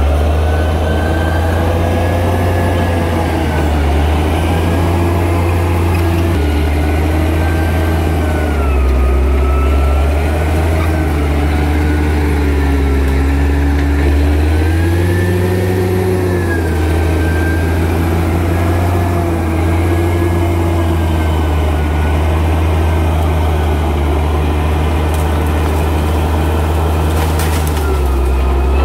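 Crawler bulldozer's diesel engine running under load, its pitch rising and falling as the engine works harder and eases off. A few brief clanks come near the end.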